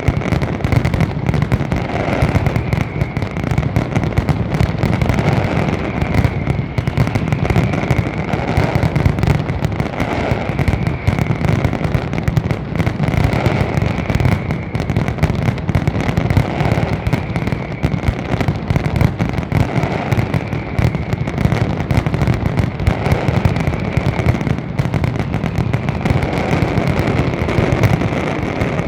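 Aerial fireworks display in a dense, continuous barrage of rapid bangs and crackling with no pause.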